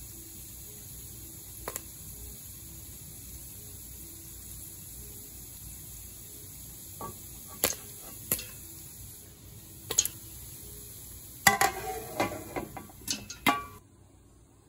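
Popcorn kernels popping in hot oil in a stainless steel pot over a steady sizzle: a few single pops at first, then a quick run of pops near the end, some ringing off the metal pot. The sizzle stops abruptly just before the end.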